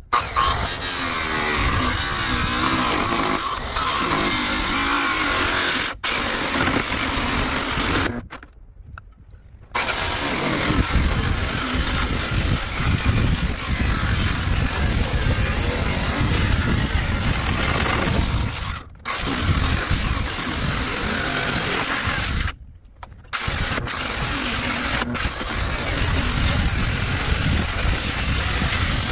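Circular saw (Skil saw) with a metal cutoff blade cutting through a stack of ten clamped metal siding panels at once, a loud continuous grinding cut. It stops briefly a few times, the longest pause about 8 seconds in, then resumes.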